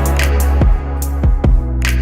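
Electronic music with a heavy, sustained bass line and a steady drum beat.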